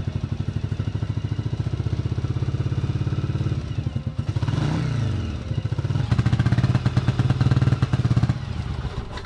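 1989 Yamaha Virago 750 V-twin engine running on only one cylinder, with an even pulsing beat. It rises and falls briefly about four seconds in, runs louder for a couple of seconds, then drops back near the end.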